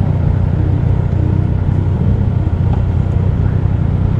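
Kawasaki Z900 SE's inline-four engine idling steadily, a low even rumble.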